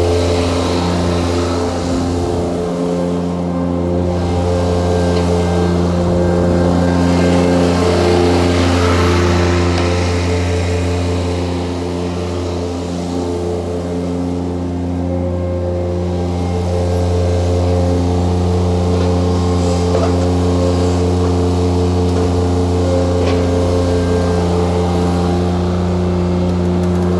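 John Deere F935 tractor's diesel engine running at a steady speed, a constant low hum, as the tractor drives and turns.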